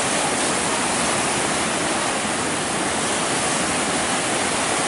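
Floodwater rushing through the open gates of a river barrage: a steady, loud rush of churning, turbulent water from a river in high flood discharge.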